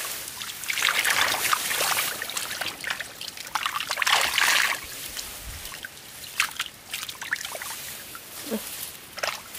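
Shallow water sloshing and trickling in irregular splashes, heaviest in two spells in the first half, then softer with a few sharp clicks near the end.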